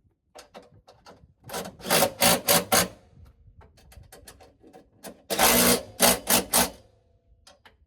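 Hand ratchet wrench clicking in quick bursts as bolts are tightened down, in two runs of several strokes each with a few softer clicks between.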